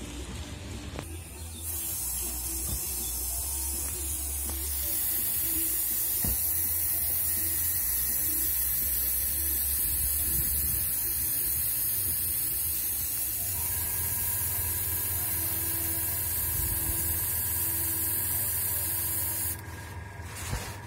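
Airbrush spraying paint in a steady hiss that starts about two seconds in, gets louder a few seconds later, and stops about a second before the end.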